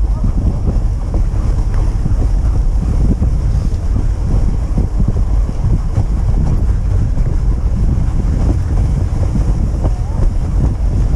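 Steady wind rumble on the microphone of a camera riding a moving dog sled, over the scraping hiss of the sled runners on packed snow.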